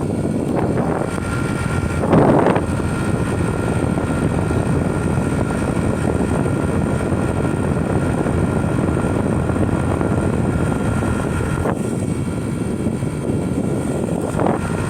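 Royal inverter air conditioner's outdoor unit running: a steady fan rush with a thin constant whine over it, and a brief louder rush about two seconds in.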